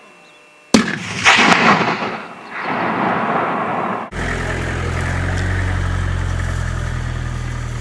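A single hunting rifle shot about a second in, cracking loudly and rolling away in a long echo. From about four seconds in, a vehicle engine runs with a steady low drone.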